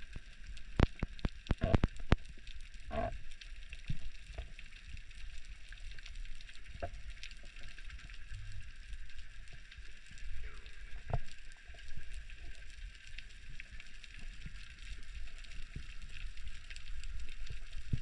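Underwater ambience near a rocky seabed: a steady fine crackling with many scattered sharper clicks. The loudest clicks come in a cluster in the first two seconds, with single loud ones about three seconds in and near the middle.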